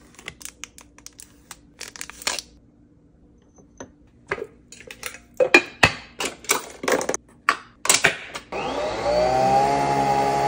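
Clicks and rustles of packaging and a capsule jar being handled. Then, about eight and a half seconds in, a Nespresso Vertuo coffee machine starts brewing: a loud steady whirring hum that rises in pitch as the capsule spins up, then holds steady.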